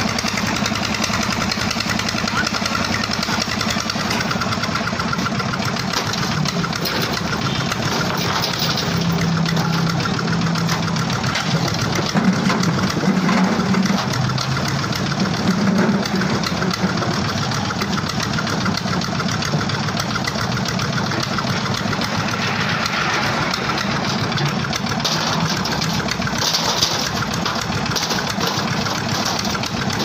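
Petter-type stationary diesel engine running steadily as it drives a construction material hoist, winching a steel bucket of bricks up the mast and down again.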